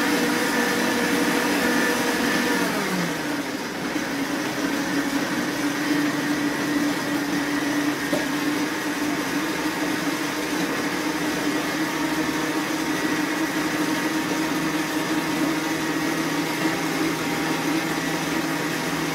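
Electric stand mixer motor running steadily while it creams butter and sugar; about three seconds in its pitch drops to a lower speed, then it runs on steadily.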